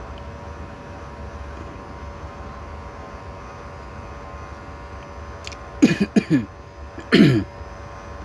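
A man clearing his throat twice, about six and seven seconds in, over a steady background hum.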